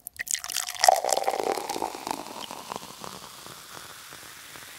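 A fizzy drink being poured, crackling and fizzing loudest about a second in, then settling to a faint steady hiss.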